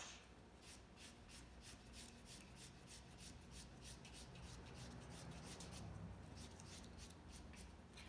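Faint scratching and rubbing of a marker and hands working on a cardboard piece, in many quick light strokes.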